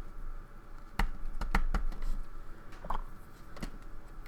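Several sharp little metal clicks and taps, spaced irregularly, from an American Lock 1100 padlock being taken apart, its plug pushed out of the cylinder with a plug follower.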